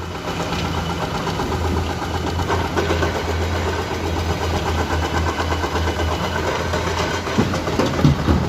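Komatsu PC210 excavator's diesel engine running steadily while it works, with a few sharp clunks near the end.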